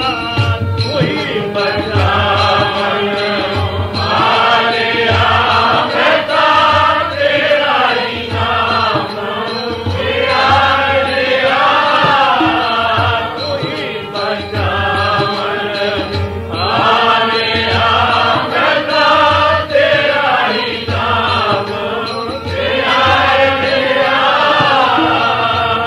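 Sikh kirtan: a devotional hymn sung in long rising and falling phrases over a harmonium's held chords, with tabla keeping a steady beat.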